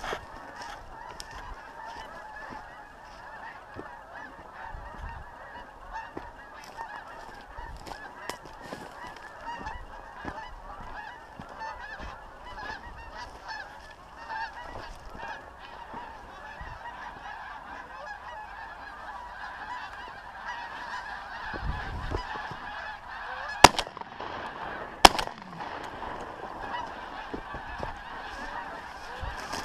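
A large flock of wild geese honking in a dense, continuous chorus. About three-quarters of the way through, two sharp shotgun shots ring out a second and a half apart: a double, both barrels fired.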